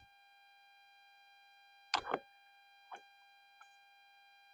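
Seasoning container and salmon package being handled: a short double rattle about two seconds in, then two fainter taps. A faint steady whine of several high tones runs underneath.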